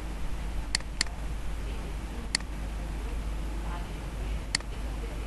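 Four sharp clicks from the keys or buttons of a computer, as code is entered, over a steady low hum.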